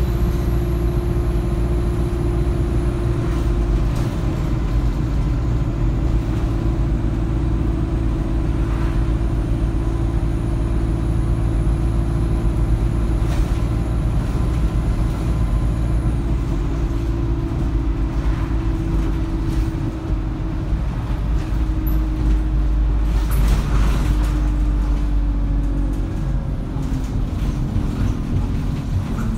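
ADL Enviro200 single-deck bus's diesel engine and drivetrain heard from inside the saloon while under way, a steady low drone with road rumble. The engine note holds steady for most of the time, then falls gradually over the last few seconds.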